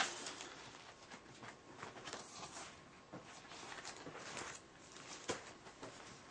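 Faint rustling and scattered light taps of photographs being handled and leafed through.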